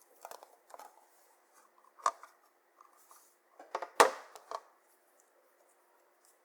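Close-up handling sounds: a few small clusters of short crackling clicks and pops, the loudest about four seconds in.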